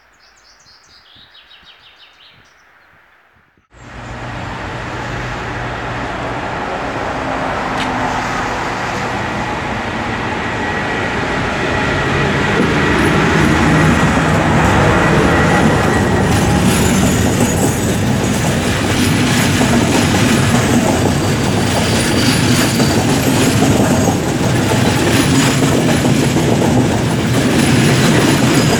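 Faint bird chirps, then about four seconds in a sudden switch to the loud noise of a passenger train running by. The wheels clack over the rail joints, and the sound builds over the next several seconds before holding steady.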